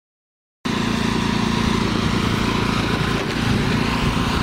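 A 2002 Pierce fire engine idling steadily, a loud, even engine hum with no change in pitch. It starts abruptly after about half a second of silence.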